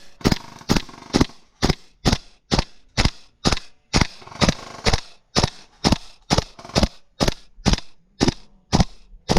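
Airsoft rifle firing single shots in a steady rhythm, about two shots a second, some twenty in all.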